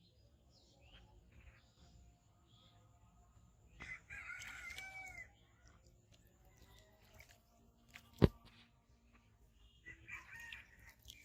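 A rooster crowing once for about a second and a half, about four seconds in, with a shorter call near the end. A single sharp click, the loudest sound, just after eight seconds.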